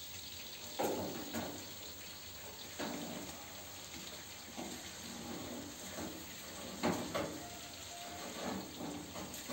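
Food sizzling in a metal baking tray in the oven of a wood-burning cast-iron stove, a steady hiss. There are a few sharp knocks and scrapes as the tray and food are handled: about a second in, near three seconds, and loudest near seven seconds.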